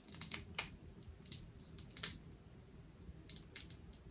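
Boiled crawfish being peeled by hand: faint, irregular small cracks and clicks of the shell breaking, in a few short clusters.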